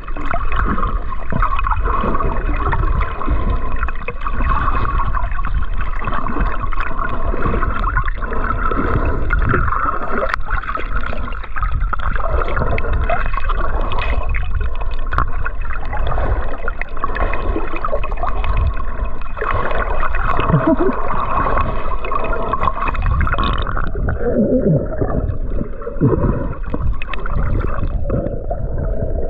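Water gurgling and sloshing around a camera at and under the surface while snorkelling. About three-quarters of the way through, it turns more muffled.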